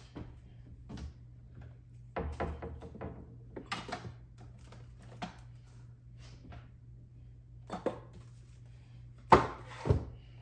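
Kitchen handling noises: scattered light clicks and knocks, with a busier stretch a couple of seconds in and two sharp knocks near the end, over a steady low hum.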